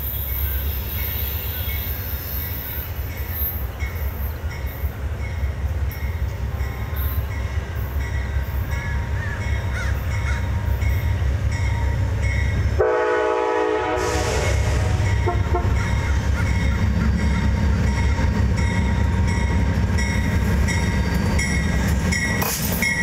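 Amtrak Genesis diesel locomotive approaching with its passenger train, its low rumble building steadily as it nears. About halfway through comes one short horn blast lasting about a second.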